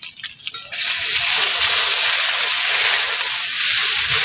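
Onion, tomato and spice paste frying in hot mustard oil in a metal kadai, stirred with a ladle: a steady sizzle that starts abruptly less than a second in.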